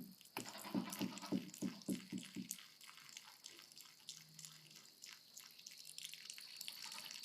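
A goat making a rapid series of short, low sounds, about four a second, that stop about two and a half seconds in.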